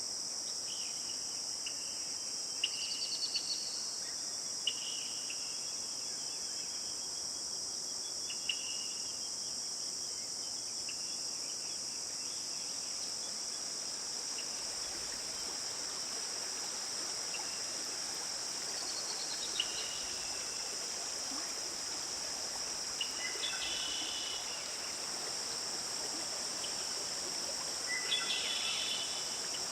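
Steady high-pitched insect chorus, with scattered short bird chirps and a couple of quick falling trills over it, a few seconds in, about two-thirds through and near the end.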